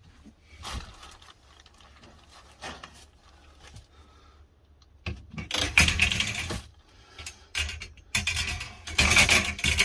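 Greenhouse shelving parts being handled and fitted together, rattling and clattering. A few faint knocks at first, then two spells of louder clatter, about five seconds in and again near the end.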